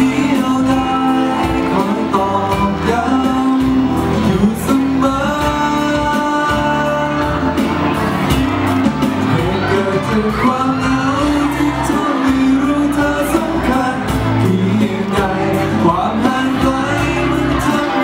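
A man singing a Thai pop ballad live into a microphone over a backing track, with a few shouts and whoops from the audience.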